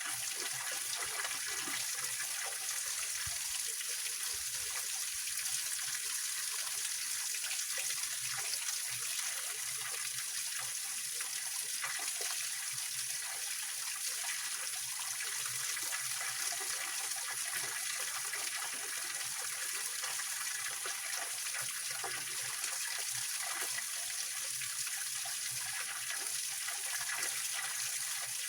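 Small mountain spring waterfall and stream running over rocks: a steady, even rush of water with a bright, hissy splash and no pauses.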